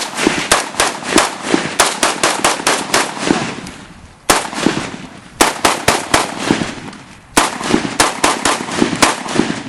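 Semi-automatic scoped rifle fired rapidly, in three strings of quick shots, several a second, with short pauses between the strings.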